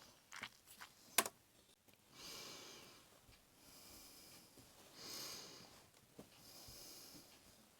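Adhesive tape handled at a work table: a few sharp clicks, then tape pulled off the roll in four drawn-out rasps, each under a second long. Faint.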